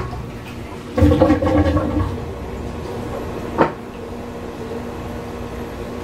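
Maytag Commercial Technology top-load washer spinning its basket in the diagnostic calibration cycle: a steady motor hum that swells for about a second near the start, with a single sharp knock a little past the middle.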